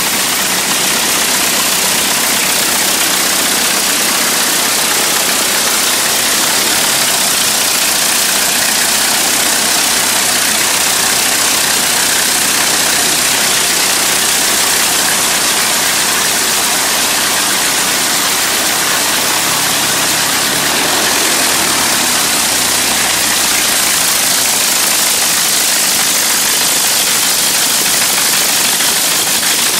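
1910 Wright Brothers aeroplane engine No. 20, an early four-cylinder inline engine, running loudly and steadily on its test stand.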